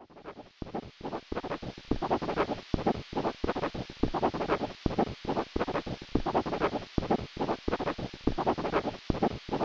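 Chalk scratching across a chalkboard in quick, irregular short strokes, several a second: a handwriting sound effect.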